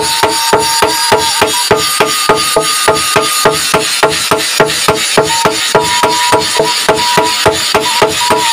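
Two smiths hand-forging a red-hot golok blade on an anvil, a hand hammer and a sledgehammer striking in turn in a fast, even rhythm of about four to five blows a second. A metallic ring carries between the blows.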